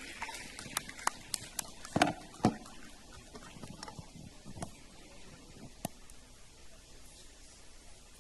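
Scattered hand claps from a few people in an audience, sharp single claps in the first two seconds that thin out, with two louder thumps about two and two and a half seconds in.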